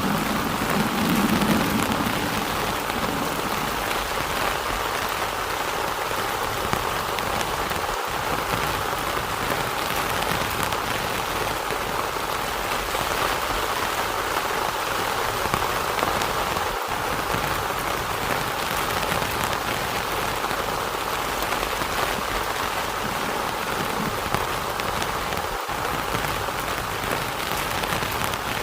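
Heavy rain falling steadily, with a low rumble of thunder fading out in the first couple of seconds.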